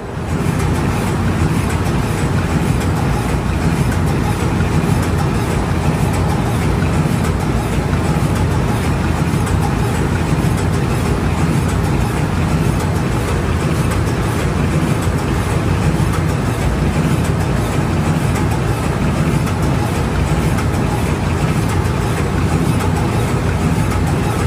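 Loud, steady engine-room noise of a ship's main diesel engine running, heaviest in the low range and without rhythm or break. It cuts in abruptly at the start and fades away near the end.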